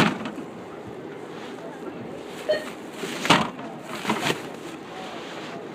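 Supermarket background with a steady murmur and a short electronic beep about two and a half seconds in. Brief sharp bursts come at the start and twice more a little after three and four seconds in; these are the loudest sounds.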